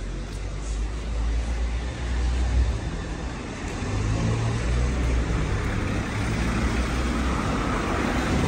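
Road traffic on a city street: cars running past with a low engine rumble and tyre noise, one passing car growing louder near the end.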